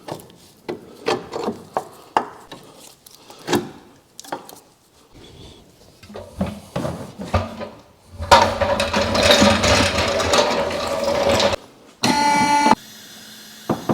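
Clinks and knocks of tools on the car's suspension, then an impact wrench rattling for about three seconds as it undoes a tight bolt, followed by a short buzzing tone.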